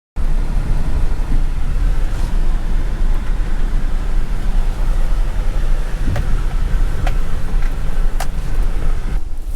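Wind buffeting the microphone outdoors: a loud, steady, gusting low rumble, with a few faint clicks in the second half.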